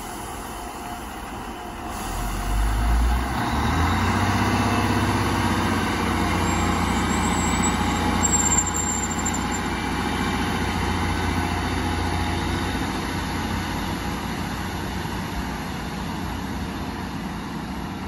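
Class 153 diesel multiple unit's underfloor diesel engines throttling up about two seconds in as the train pulls away from the platform, a deep steady rumble that slowly fades as it draws off. A brief high squeal is heard partway through.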